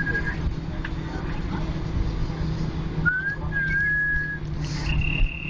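Mouth whistling in plain held notes. A held note ends just after the start, a second note slides up and then holds about three seconds in, and a higher held note begins near the end. Under it runs the steady drone of an airliner cabin.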